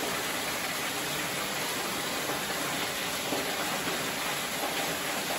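Water from a small fountain falling steadily into its pool, a constant splashing hiss.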